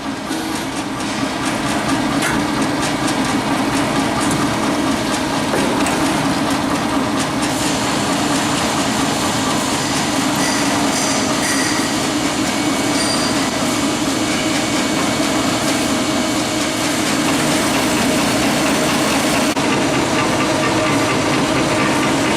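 Automatic metal-cutting band saw running steadily, its blade cutting through metal stock with a continuous hum.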